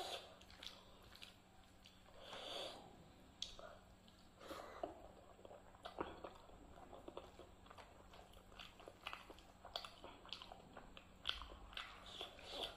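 Close-up eating sounds from a meal of rice and dal eaten by hand: quiet wet squishing of fingers mixing rice into dal, with chewing and lip smacks. They come as irregular soft clicks and smacks, with a few longer squelches.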